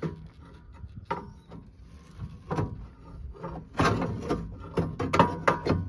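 Pry bar levering a car's rear coil spring out of its seat. There are scattered metal knocks at first, then from about four seconds in a dense run of clanks and scraping as the spring shifts.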